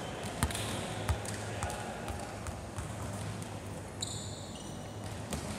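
A volleyball bouncing a few times on a wooden sports-hall floor, with a brief high-pitched squeak about four seconds in, over a steady low hum.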